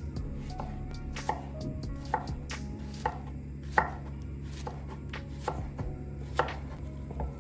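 Knife chopping on a cutting board, single strokes about once a second at uneven intervals, over a steady low hum.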